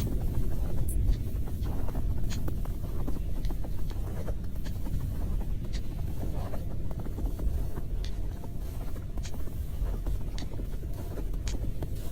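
Steady low rumble with faint, scattered short ticks.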